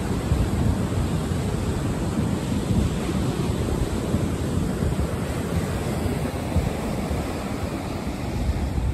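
Ocean surf breaking and washing over a rocky beach, a steady rush of waves, with wind buffeting the microphone.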